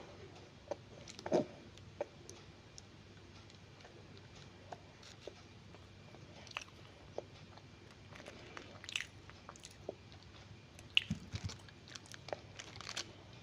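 Someone biting into and chewing apple pie, with irregular soft crunches of the pastry crust and a louder crunch about a second in.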